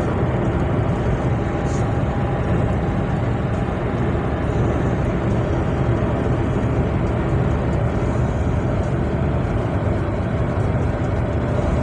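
Steady road and engine noise heard inside the cabin of a Nissan car cruising on a motorway at about 90 km/h, a low, even rumble with tyre hiss.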